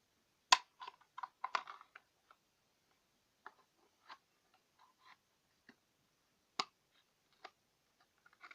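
Scattered small clicks and taps from handling slime-making materials and containers, the sharpest about half a second in.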